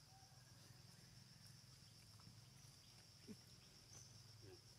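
Near silence: the faint, steady high drone of insects in the forest, with one brief faint chirp about three seconds in.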